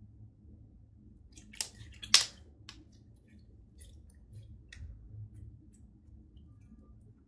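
Sticky green slime being stretched and squished by hand, popping and clicking wetly as air pockets burst. Two sharp pops come about a second and a half and two seconds in, the second the loudest, then a run of fainter clicks.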